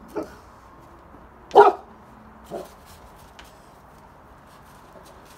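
Dog barking in play: three short barks, the second, about a second and a half in, the loudest.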